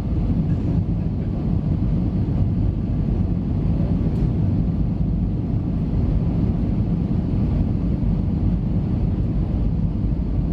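Steady low rumble of an Airbus A320's jet engines and airflow, heard inside the passenger cabin during the approach to landing.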